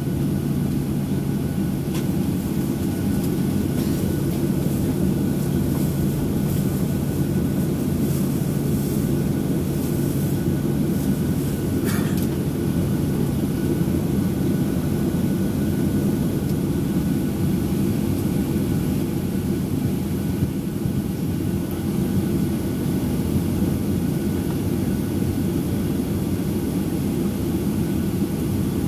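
Steady jet-engine and airflow noise inside the cabin of a Boeing 737-800 in flight, with its CFM56-7B turbofans at climb power: a dense, even low rumble with a steady hum. A brief faint rattle comes about twelve seconds in.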